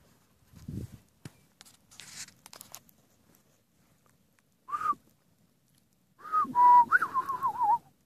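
A person whistling: a short breathy note about five seconds in, then a longer, louder one near the end that wavers up and down in pitch. Faint crackles and a soft low thump come first.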